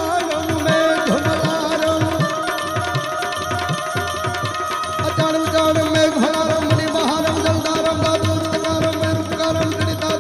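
Instrumental interlude of Gujarati devotional folk music: hand drums keep a steady rhythm under a held melody line.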